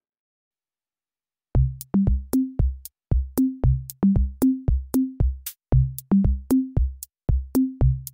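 Silence, then electronic background music starts about a second and a half in: a drum-machine beat with a low bass line stepping between a few notes.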